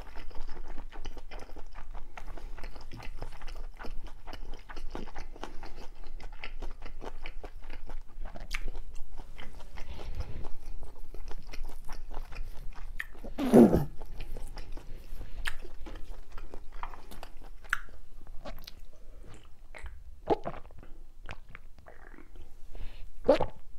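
Close-miked chewing of food, with dense wet mouth clicks for the first half. About halfway comes one louder brief sound that falls in pitch. Near the end there are a few separate gulps as a drink is swallowed from a can.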